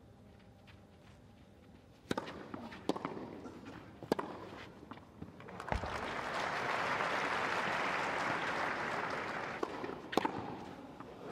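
Tennis ball struck back and forth by rackets in a rally, four sharp hits over about three and a half seconds, then a crowd applauding for about four seconds; another racket hit comes near the end.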